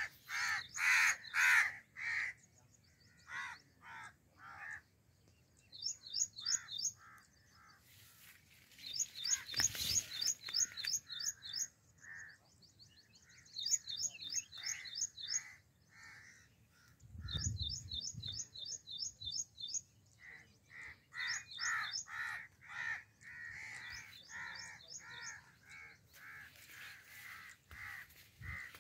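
Crows cawing in repeated harsh calls, with bouts of very rapid, high-pitched chirping from a smaller bird in between.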